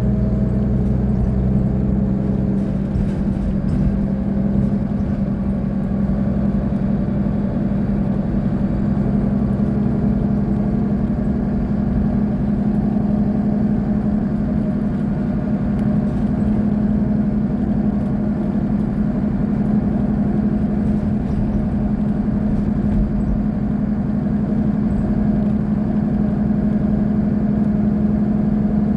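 Solaris Urbino 18 articulated city bus idling at a standstill, a steady low engine hum that holds even throughout.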